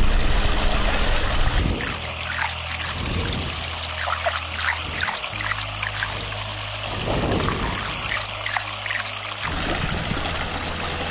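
Water pouring and splashing, with a few light plastic knocks as gold pans and buckets are handled.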